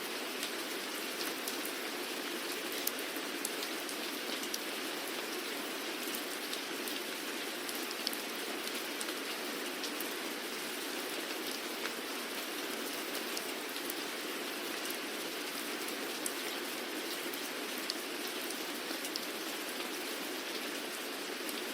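Steady rainfall with scattered sharp drop ticks.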